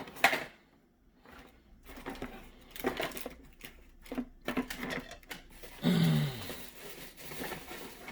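Irregular clicking and crinkling of a diecast car's plastic blister packaging being handled, with a louder crinkling stretch and a short low falling tone about six seconds in.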